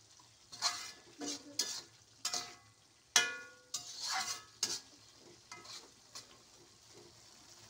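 A spatula scraping and knocking against an aluminium wok as green beans and beef are stir-fried, over a faint sizzle. One knock about three seconds in is the loudest and rings briefly, and the strokes thin out near the end.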